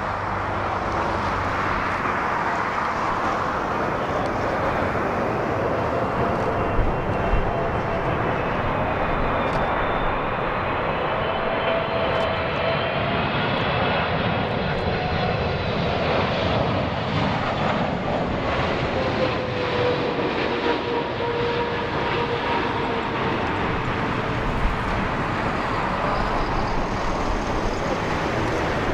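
Twin-engine widebody jet airliner on landing approach passing overhead: steady jet engine noise with whining tones that waver and then fall in pitch past the middle.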